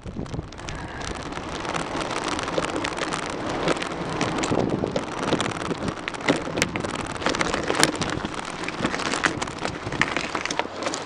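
Bicycle rolling along a trail, heard through a camera taped to the bike: steady rushing wind and tyre noise on the microphone, with many small clicks and rattles throughout.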